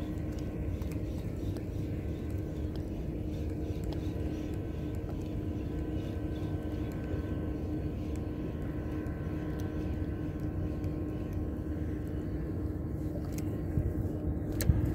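Steady, low engine drone with a constant hum, like distant traffic or an aircraft. A sharp click and a knock come near the end.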